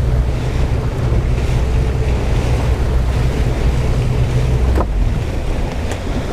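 Boat motor running steadily under wind buffeting the microphone and water noise. The engine hum drops away about five seconds in.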